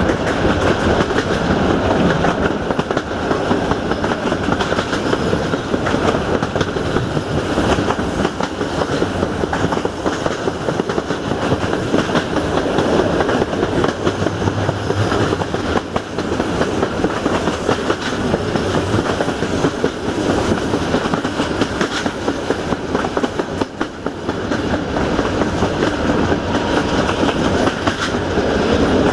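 Passenger train coach wheels rolling over the rails at speed, heard from an open window alongside the coaches: a loud, steady rumble with a dense run of clicks.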